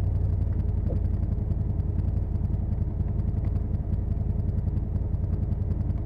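Side-by-side UTV engine idling steadily, heard from inside the cab.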